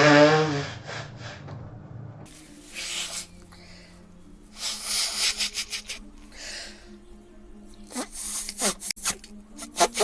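A woman's short, loud voiced burst falling in pitch at the start, then nose blowing into a tissue in several rasping blasts of about a second each, with tissue rustling and clicks near the end.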